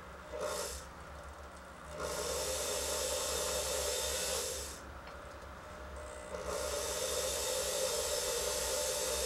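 A drill bit cutting into acrylic, with a rasping, hissing grind in three spells: a short touch, then a run of about two and a half seconds, then a longer run of about four seconds, over a steady low hum.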